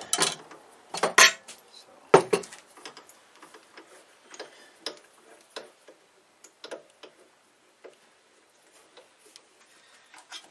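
Metal clicks and knocks of a drill press chuck being fitted with a bit and tightened, by hand and with a chuck key. Three sharper knocks in the first two and a half seconds, then lighter, scattered ticks.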